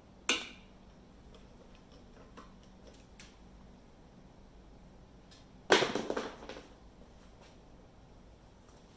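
Two sharp metallic knocks about five seconds apart. The second is louder and rings on briefly. A few light ticks fall between them.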